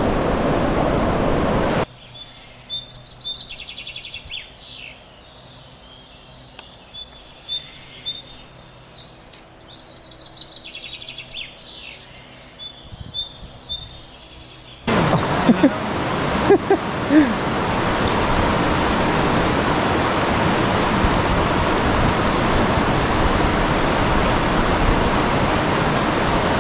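Rushing river water, broken for about thirteen seconds by a quieter stretch of small songbirds chirping and trilling; the rush of the river comes back with a few knocks.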